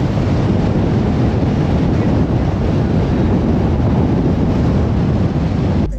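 Loud, steady wind noise buffeting a camera microphone on a car driving at road speed, with the rumble of road noise underneath; it starts and cuts off suddenly.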